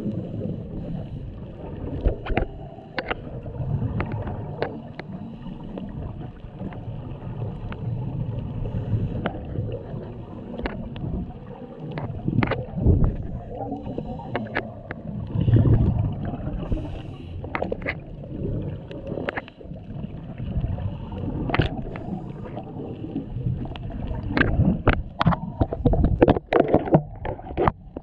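Muffled underwater sound through a camera's waterproof housing: a low rumble with surges of a scuba diver's exhaled regulator bubbles every few seconds, and many sharp clicks and knocks.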